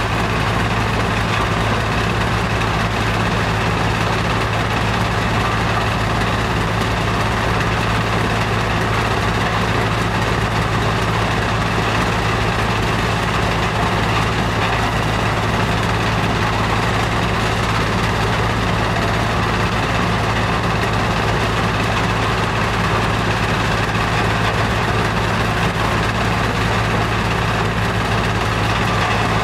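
Sand washing plant machinery running: a steady, unchanging drone with a strong low hum and an even hiss over it.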